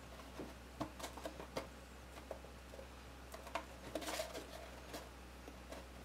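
Cardstock pieces being handled and pressed together: scattered light taps and clicks, with a short rustle about four seconds in.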